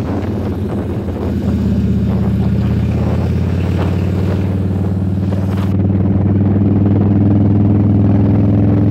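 Cruiser motorcycle's engine running steadily at road speed, heard from the rider's seat. A hiss over it drops away about six seconds in as the engine gets slightly louder.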